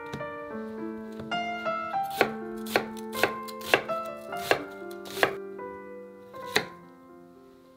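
Kitchen knife cutting through onion and Korean zucchini onto a wooden cutting board. Each stroke gives a sharp knock, roughly one every half second, until about six and a half seconds in.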